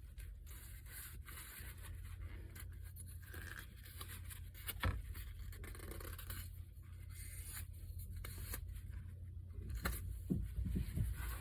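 Small carburetor parts being handled on a workbench: light scraping and scattered small clicks, with a sharper click about five seconds in and a few more near the end, over a steady low hum.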